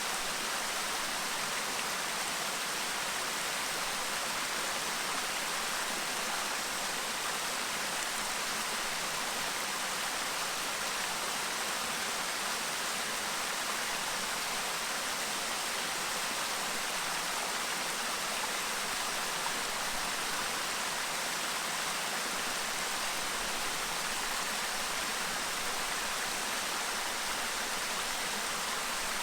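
Clear stream babbling: a steady, even rush of flowing water with no change in level.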